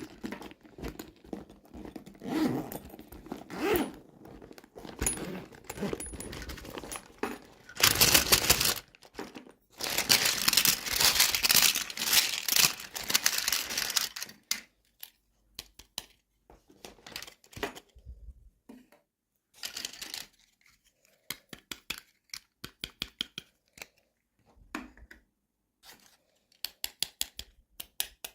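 Toy packaging being opened by hand: plastic and paper crinkling and tearing, loudest in a long tearing stretch from about ten to fourteen seconds in, then a run of small clicks and snaps.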